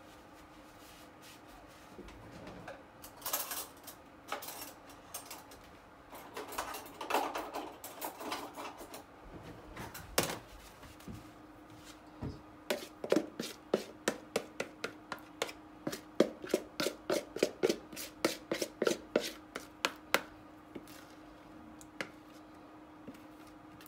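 Kitchen utensils scraping and then tapping sharply on bakeware as cake batter is layered into a pan. The taps come in a quick run of about four a second for some eight seconds, over a steady low hum.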